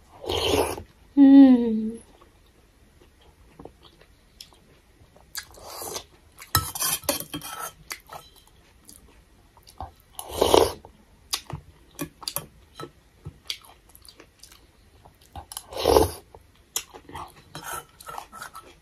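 Eating thukpa noodle soup from a steel bowl with a steel spoon: chewing, three loud slurps, and many small clicks of the spoon against the bowl. A short falling hum comes about a second in.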